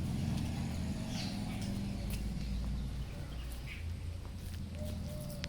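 Outdoor ambience: a steady low rumble with a few faint, short chirps, and some brief faint calls near the end.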